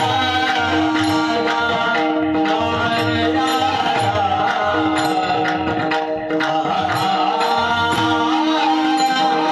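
A man singing a Varkari devotional bhajan in a wavering, ornamented line over a steady drone, with hand-drum strokes keeping the rhythm.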